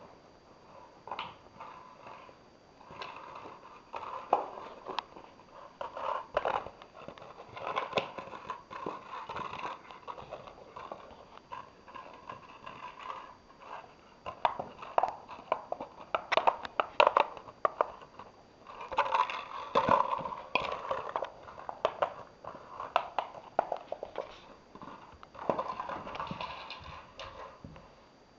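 Gordon Setter puppy chewing and batting an empty plastic bottle: irregular crackles and knocks of the plastic, in bursts with short pauses.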